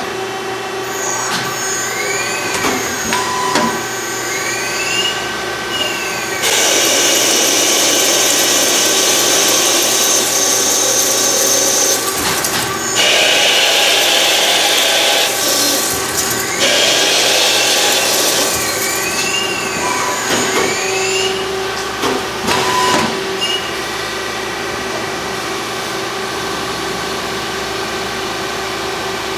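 CNC machine tool cutting metal: a steady machine whine with rising-and-falling pitch glides as the spindle and axes change speed. A loud rushing cutting noise comes in three long stretches through the middle.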